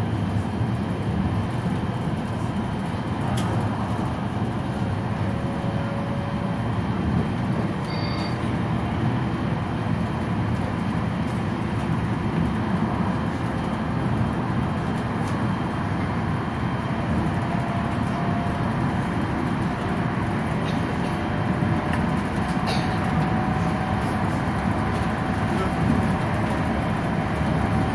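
Alstom Citadis Dualis tram-train heard from inside the passenger cabin while running at speed: a steady rumble of wheels on rail and running gear, with a few light clicks.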